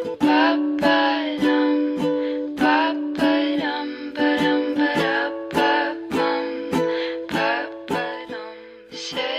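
Background music: an acoustic track of strummed plucked strings on a regular beat, fading down near the end.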